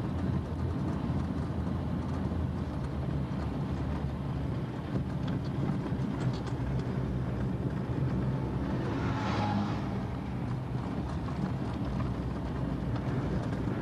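Car engine and road noise in a steady low drone, with a brief rushing swell about two-thirds of the way in.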